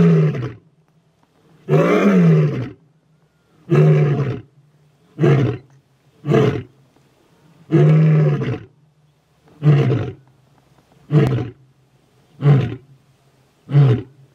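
Male lion roaring in two bouts. Each bout opens with long, full roars and trails off into a run of shorter, quicker grunting roars that come closer together.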